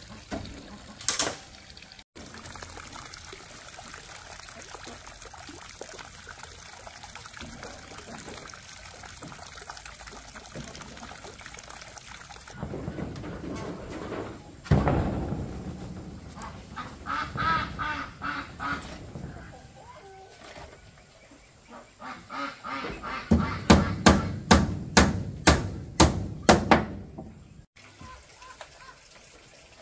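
Farmyard ducks quacking at intervals, with a quick run of about ten sharp knocks a few seconds before the end.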